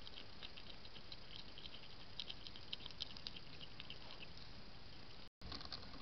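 Hedgehog eating at a feeding tray: faint, quick smacking and crunching clicks over a low hiss, busiest in the middle, broken by a short gap near the end.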